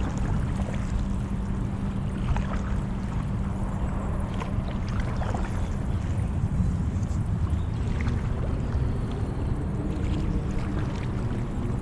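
Water splashing and lapping against a stand-up paddleboard with irregular paddle strokes, picked up by a chest-mounted GoPro. A steady low hum sits underneath and fades out about halfway through.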